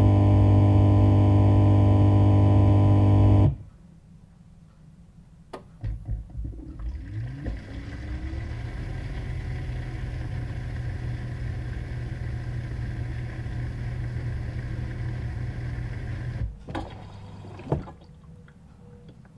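Loud guitar music that cuts off after about three seconds. Then a dishwasher starts: a click, a few knocks and a motor winding up, then a steady hum with a rushing noise as it runs. About sixteen seconds in it stops abruptly, and a single knock follows.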